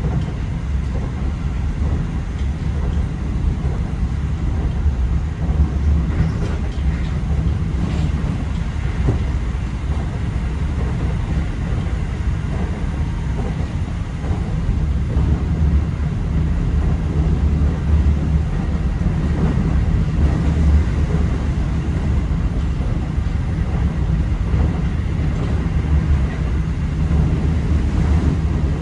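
Inside a Keio 5000 series commuter train car: a steady low rumble with a fainter even hiss above it.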